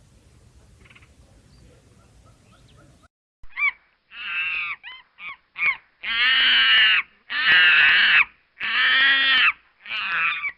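A faint background with a few small chirps, then about three seconds in an animal starts calling loudly, again and again: a few short calls, then several long ones of about a second each.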